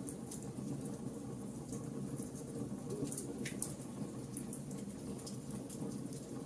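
Wood fire burning in a fireplace: a steady low rumble with frequent small crackles and pops, one a little louder about three and a half seconds in.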